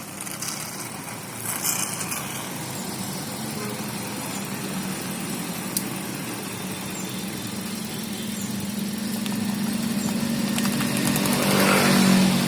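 Car engine running steadily with a constant hum, growing gradually louder toward the end.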